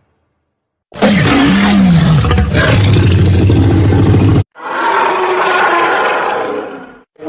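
Dinosaur roar sound effect. It is loud and deep with a wavering pitch, starts about a second in and cuts off sharply after about three and a half seconds. A second, higher-pitched roar follows and fades out near the end.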